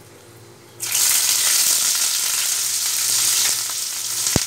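Chopped red onion dropped into hot oil in a kadai: after a quiet start, a loud sizzle begins suddenly about a second in and keeps frying steadily. A single thump near the end.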